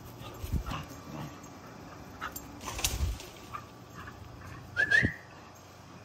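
German Shorthaired Pointer puppy whimpering and yipping in short cries while it plays, with a few knocks; a short rising high cry about five seconds in is the loudest sound.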